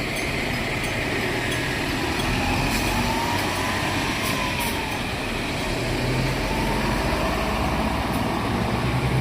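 Keifuku Bus route bus engine running, with a faint whine that rises and falls in pitch twice.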